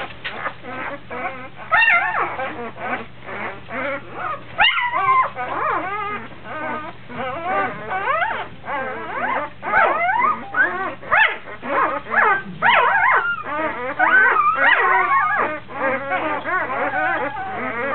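Newborn Labrador puppies whimpering and squealing in many short, high cries that rise and fall, several overlapping at once. These are the cries of hungry neonatal puppies hunting for a teat to nurse.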